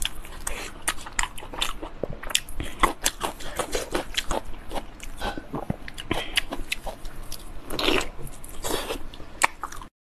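Close-miked eating sounds: wet biting, sucking and chewing of soft sheep's brain in tied tripe pouches, a dense run of irregular smacks and clicks that cuts off suddenly just before the end.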